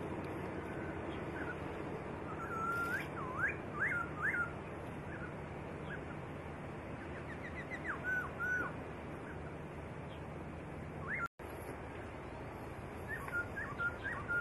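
Songbird singing: short, clear whistled notes that swoop up and down, given in small groups with pauses between them, over a steady hiss. The sound cuts out for a split second about three quarters of the way through.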